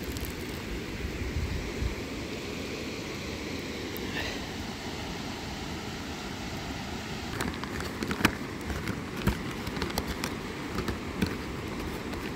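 River water rushing steadily, with a scattering of sharp clicks and knocks over the last few seconds.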